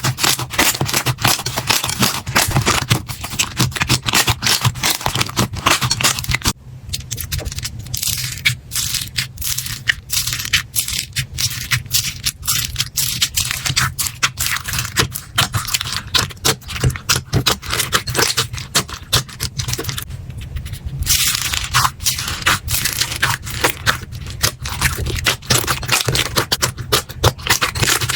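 Slime being squeezed and worked by hand: a dense, continuous run of crackling clicks and pops. The texture changes abruptly twice, about six and a half seconds in and again about twenty-one seconds in.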